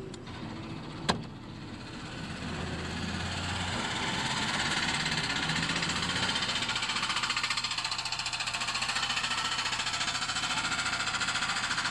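Heard from inside the car, it pulls away from a stop: engine and tyre hiss on wet pavement swell over the first few seconds as it picks up speed, then hold steady. A sharp click about a second in.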